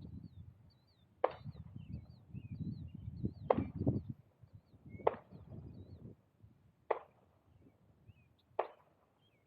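Five sharp knocks, evenly spaced about every second and a half to two seconds, like chopping or striking wood, over a low uneven rumble that dies away about two-thirds through, with short high chirps scattered throughout.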